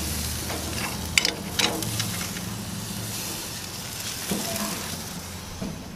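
Steak and vegetable kebabs sizzling on a gas grill, a steady hiss with a few sharp pops and clicks in the first two seconds, fading out near the end.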